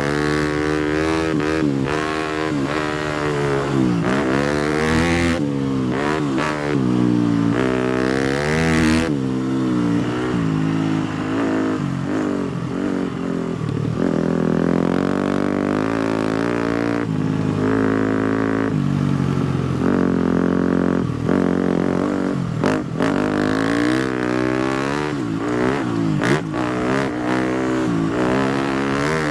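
250cc four-stroke motocross bike engine running under way, its pitch rising and falling again and again as the throttle opens and closes through the gears.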